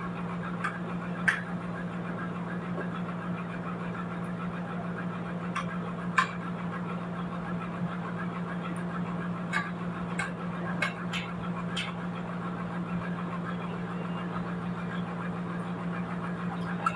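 A steady low machine hum runs throughout under scattered sharp knocks of wood on wood, most of them between about six and twelve seconds in, as wooden sticks are handled among freshly sawn trembesi slabs.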